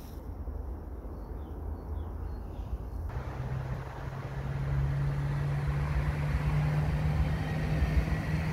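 A low outdoor rumble. About three seconds in, a steady engine hum starts and grows louder, its pitch creeping slowly upward, as a motor vehicle passes close by.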